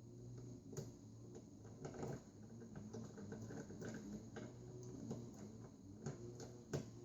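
Faint clicks and light scraping of small screws being driven with a screwdriver into the spindle-motor mount of a 5.25-inch floppy drive. There is a sharper click about a second in and another near the end.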